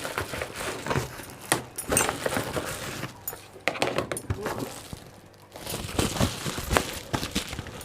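Paper and packaging rustling in irregular handling, with scattered light clicks and taps.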